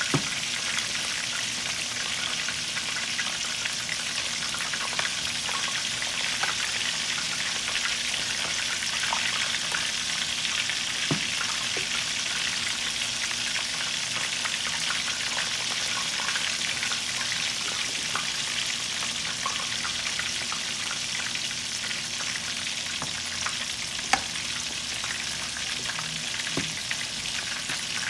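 Chicken drumsticks frying in hot oil, a steady even sizzle. A few light clicks sound over it now and then, one a little sharper near the end.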